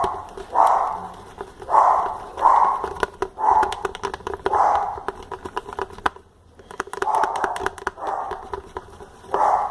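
A dog barking over and over, about once a second, with small clicks alongside.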